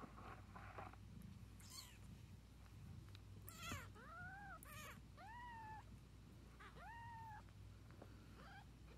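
Newborn kitten mewing: about four faint, thin, high-pitched mews, each rising then falling in pitch, starting a few seconds in.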